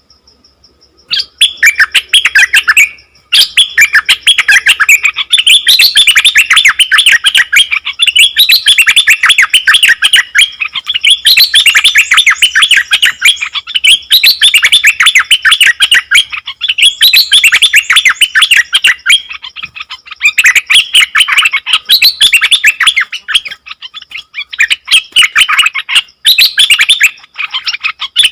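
Caged songbird known in Thai as the nok dok taeng singing loud, continuous song of rapid, chattering notes, starting about a second in with a few brief pauses.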